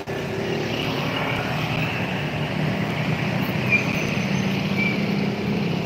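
Street traffic: steady road noise with a vehicle engine humming, the hum growing stronger about halfway through.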